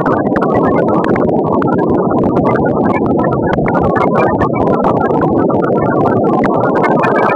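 Steady, loud engine and road noise of a vehicle travelling over a rough dirt road, with wind and rattling on the microphone.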